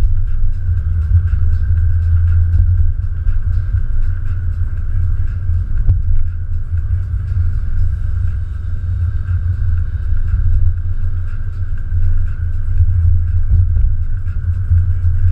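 Inside a moving car's cabin: steady low engine and road rumble while driving through town, rising and falling a little in level.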